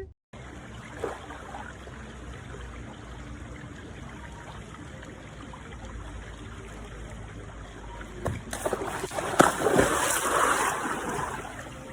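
Steady rush of running water, growing louder and splashier with a few knocks from about eight and a half seconds in.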